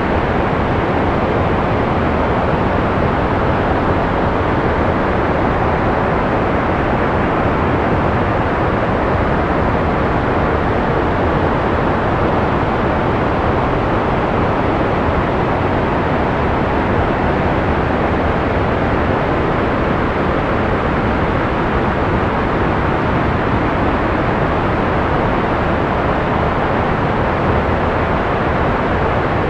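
Steady analog white noise: an even, unchanging hiss with the top end rolled off, so it sounds duller and darker than pure white noise.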